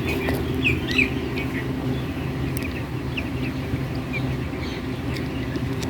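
Chickens chirping: short, high peeps scattered throughout, over a steady low hum.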